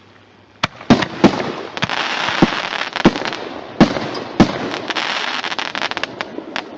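Single-shot artillery shell fireworks going off: a series of sharp bangs over a continuous crackling hiss that starts about a second in.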